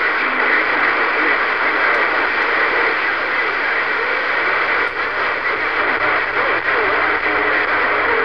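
CB radio receiver putting out steady static hiss, with faint, unreadable voices buried in the noise while the signal meter moves.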